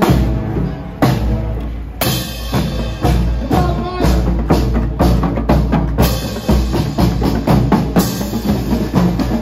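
Marching band playing as it passes close by: woodwinds over a bass-drum beat about once a second at first, then from about halfway the drumline's bass drums and snares drum loudly at a much faster rate.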